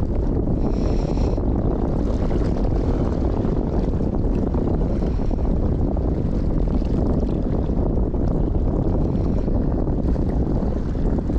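Wind buffeting the microphone: a loud, steady rumble of noise with no distinct events.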